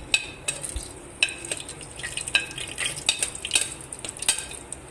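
Whole spices (cinnamon, cardamom, cloves and black peppercorns) being pushed with a spoon off a plate into hot oil in a metal pot: irregular clinks and scrapes of the spoon on the plate and pot, with the oil sizzling as the spices begin to fry. The clinks thin out near the end.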